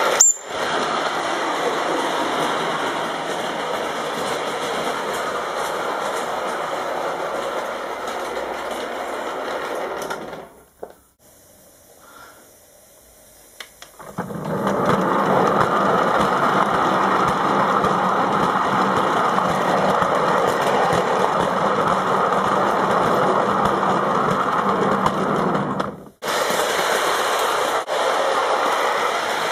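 Mamod live-steam model locomotive running, its small oscillating cylinders exhausting steam in a fast, steady chuff with the clatter of the mechanism. The sound falls away for a few seconds near the middle, then returns at full strength.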